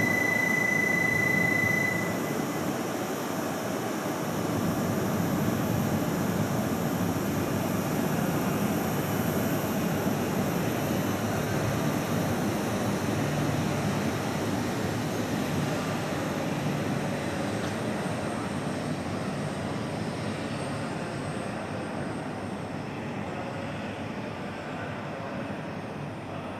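E6 series Komachi shinkansen pulling away and accelerating out along the platform, its running noise slowly fading as it recedes. A steady high-pitched beep stops about two seconds in.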